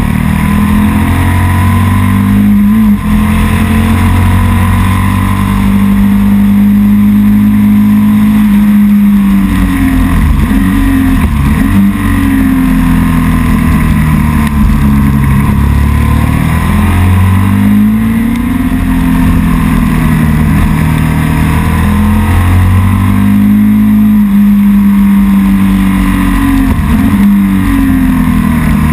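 Vehicle engine held at high revs during a burnout, its pitch steady for several seconds at a time, then dipping and climbing again a few times.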